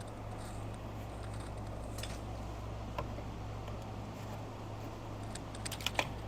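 Steady low hum with a few light metallic clicks and clinks of a wrench being worked on the fittings under the car, a small cluster of them near the end.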